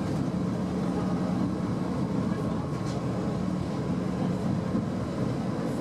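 An old electric tram running along the track, heard from inside: a steady low motor hum over wheel-on-rail running noise.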